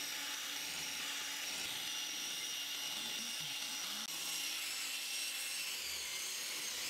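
Cordless drill running steadily, spinning a foam polishing pad loaded with plastic polish against a plastic headlight lens to buff out its haze. It makes a steady high whine with a faint rubbing.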